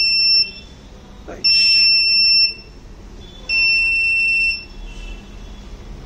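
Electronic buzzer module sounding a high-pitched alert in beeps about a second long, one every two seconds, warning that the hand was taken out before the sanitizing time was up. The beeps stop a little after halfway.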